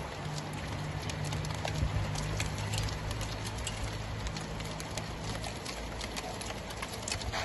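Hail mixed with rain falling on a flat roof: a dense patter studded with sharp ticks of hailstones striking the surface. A low hum runs underneath for the first few seconds.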